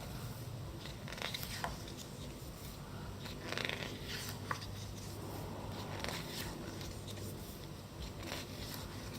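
Faint rustling and a few soft taps of the pages of a thick magazine being handled and turned, over a steady low hum.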